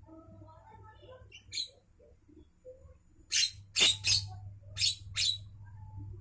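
Javan myna calling: quiet, scattered chattering notes, then five loud, harsh, noisy calls in quick succession in the second half.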